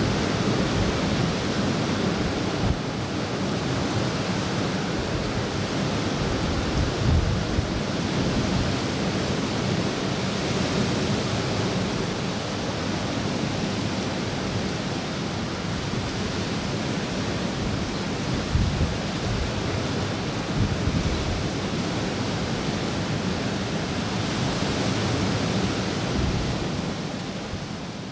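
Steady outdoor wash of water and wind noise with slow swells, broken by a few low thumps of wind on the microphone; it fades down near the end.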